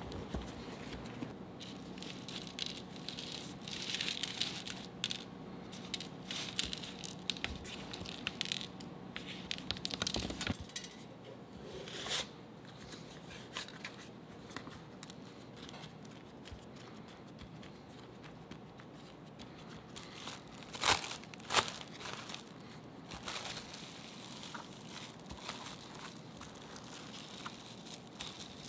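Hands working an oat-coated dough log into a metal loaf tin: dry rolled-oat flakes rustling, with small taps, over a faint steady hum that stops about a third of the way through. Later, plastic cling film crinkles as it is pulled and stretched over the tin. Two sharp, loud clicks come a little past two-thirds of the way through.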